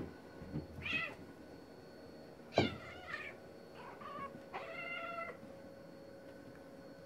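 Two male cats fighting, yowling in short cries with a longer held yowl about five seconds in; the loudest cry comes sharply about two and a half seconds in.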